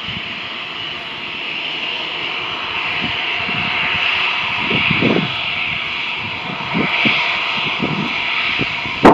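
Jet engines of a twin-engine Airbus A320-family airliner at taxi power: a steady high whine that grows louder as the aircraft comes closer.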